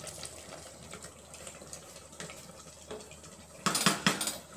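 Wooden spatula stirring thick chicken masala gravy in a steel pressure cooker, with small wet clicks, then a few loud scrapes and knocks of the spatula against the pot near the end.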